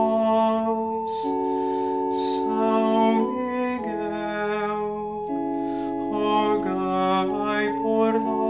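A man sings slow Portuguese litany invocations over sustained chords played on an electronic keyboard. The held chords change every second or so, and his sung sibilants hiss briefly about one and two seconds in.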